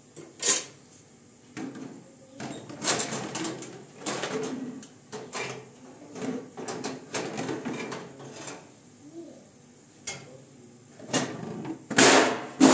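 Washed dishes, metal pots and lids being set on a wire dish rack: repeated clinks and clatter of metal and plastic, with a sharp knock about half a second in and the loudest clatter near the end.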